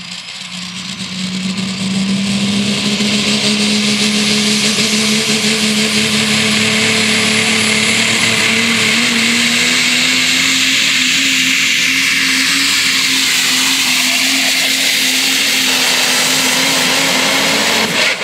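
Super stock diesel pickup at full throttle, pulling a sled: a steady engine note that builds over the first two seconds, then climbs slowly in pitch, under a loud high hiss and whistle from the turbochargers.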